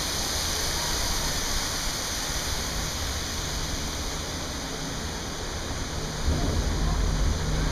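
Steady rushing noise of wind over the camera and water falling below a Von Roll Type 101 gondola ride. A low rumble joins about six seconds in, as the cabin passes a support tower.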